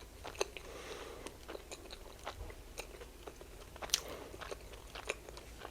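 Close-miked chewing of a mini burger slider: irregular wet mouth clicks and smacks.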